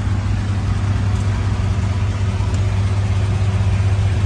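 Steady low drone of a car ferry's engine, with an even rush of wind and water, heard through an open car door.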